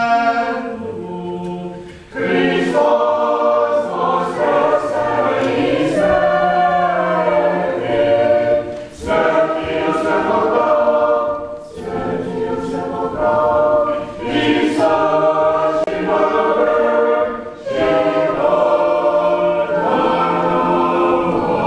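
Orthodox church choir singing a Paschal hymn a cappella in several voice parts, in sustained phrases with brief breaks between them.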